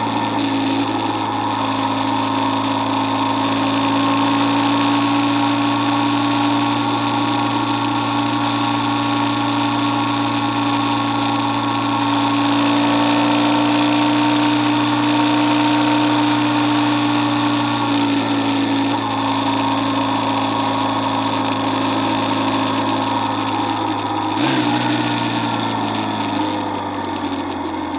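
Motorcycle engine running steadily at highway cruising speed, with wind rushing over the bike-mounted microphone. About three-quarters of the way through the pitch drops as the throttle is eased off, and the engine runs lower and a little quieter near the end.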